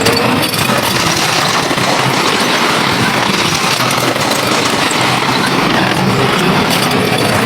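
Heavy diesel construction machinery running steadily, with the engine noise of dump trucks and earthmovers at work.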